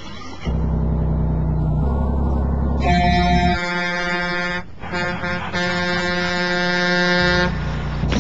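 Truck engine rumbling low, then the truck's air horn sounding in two long blasts from about three seconds in, the second lasting over two seconds.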